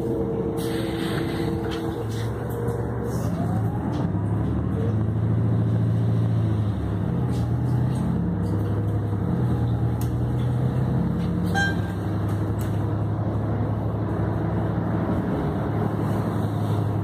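City transit bus's engine and drivetrain running, heard from inside the passenger cabin, with the engine pitch stepping several times as the bus moves through its gears and a rising whine about three seconds in. Steady road noise lies under it, and there is a single sharp knock or rattle past the middle.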